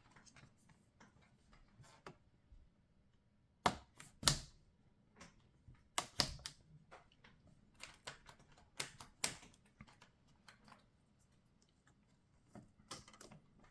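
Plastic clicks and snaps from an HP ProBook 640 G4 laptop's bottom cover being pressed down, its clips seating along the edges. The clicks come irregularly, the loudest around four and six seconds in.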